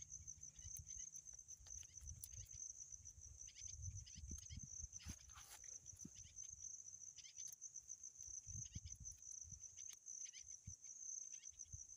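Crickets chirring steadily in the grass, with faint scattered snaps and rustles as the skin of a raw cassava root is peeled off by hand.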